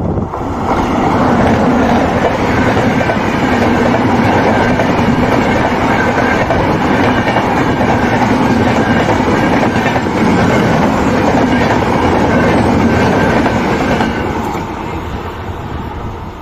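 Indian Railways train passing close by: its wheels and carriages make a loud, steady rumble. The rumble builds within the first second and fades away over the last couple of seconds.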